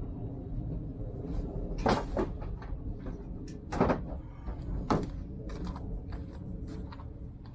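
Metal bolts and pins for an excavator quick coupler being handled while they are greased: a few sharp clicks and clunks, the loudest about two, four and five seconds in, over a steady low rumble.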